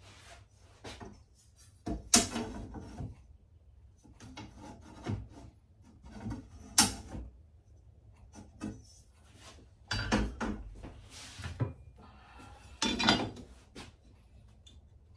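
Loose hardwood strips handled and shifted on a workbench: irregular knocks and clatters of wood on wood, with sliding and rubbing in between. The loudest knocks come about two and seven seconds in, with a cluster near ten seconds and another near thirteen.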